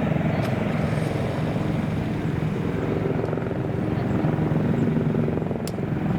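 Steady aircraft engine noise with a fast, even flutter running through it.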